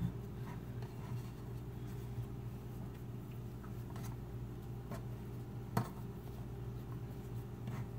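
Hands pressing pie dough into a metal muffin tin: faint rustling and handling, with one sharp tap against the tin near six seconds in, over a steady low hum.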